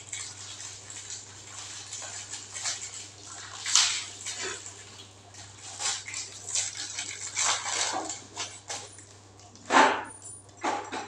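Small plumbing fittings being handled and fitted by hand: scattered clicks, rustles and scrapes of plastic and metal parts, with one louder brief sound near the end.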